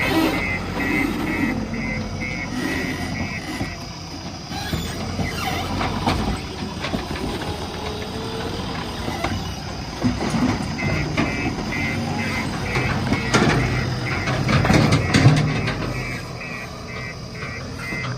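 Backhoe loader's diesel engine running under load, with its reversing alarm beeping rapidly for the first few seconds and again from about eleven seconds in. Several sharp metallic knocks come about two-thirds of the way through.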